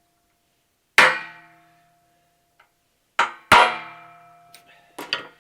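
Hammer striking a center punch on a 3/8-inch steel plate to deepen the punch marks for drilling: four sharp metallic blows, one about a second in, two in quick succession past the three-second mark and one near the end, each ringing on briefly.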